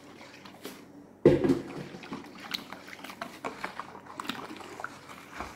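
Foamy soapy water being stirred in a plastic basin with a plastic spoon: soft wet swishing with light clicks of the spoon against the basin, and one sudden thump a little over a second in.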